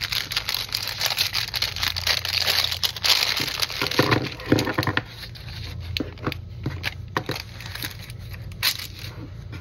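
Thin translucent paper bag crinkling and rustling for about five seconds as rolls of washi tape are worked out of it, followed by scattered light clicks and taps as the tape rolls are set down on a table.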